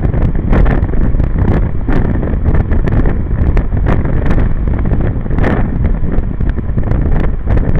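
Wind buffeting the microphone of a camera on a moving motor scooter, a loud steady rumble, with frequent sharp ticks of rain striking the camera.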